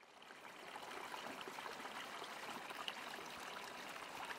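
Small mountain stream trickling and splashing over rocks, fading in at the start.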